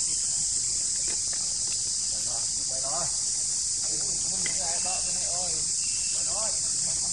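Steady high-pitched insect chorus. Several short, wavering calls join it from about two seconds in.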